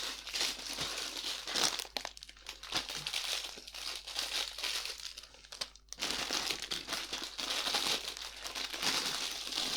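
Plastic parts bags from a Lego set being handled and sorted, crinkling with small clicks, quieter for a few seconds in the middle and busier again after about six seconds.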